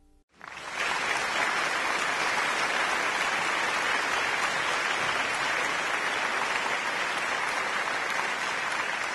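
A crowd applauding, swelling in quickly within the first second and then holding steady.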